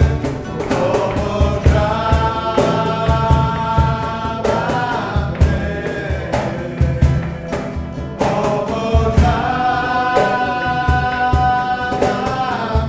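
A worship song performed live: a man and a woman singing together over a strummed acoustic guitar, with a steady rhythmic beat underneath.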